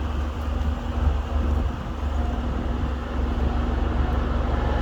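Steady low engine rumble as a big John Deere combine harvester drives past close by on the road.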